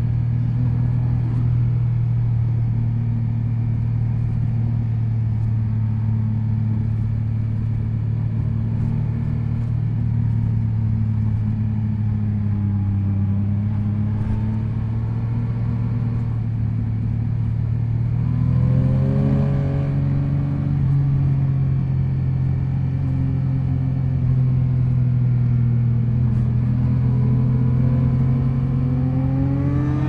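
Yamaha MT-09 SP's inline three-cylinder engine heard from the rider's seat while riding, its note sagging slowly, then rising as it picks up revs about two-thirds of the way through. The note climbs again in a short, quick rise near the end.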